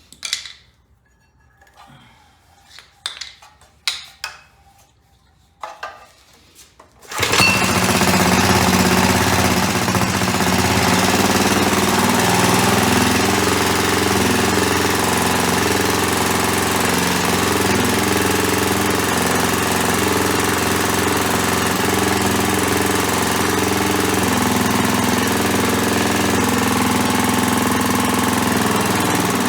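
A few scattered clicks and knocks, then about seven seconds in a freshly restored Clinton C700 small engine starts and runs steadily.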